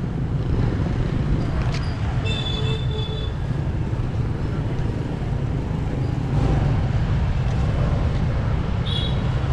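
Outdoor street ambience: a steady low rumble with distant motorbike traffic. A short high tone sounds about two and a half seconds in, and again briefly near the end.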